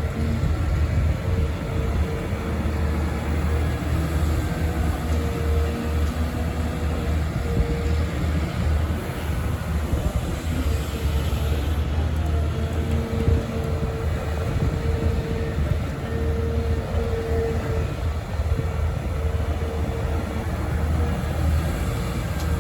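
Volvo EC300E excavator's diesel engine running steadily under working load, a deep low hum with a higher whine that comes and goes.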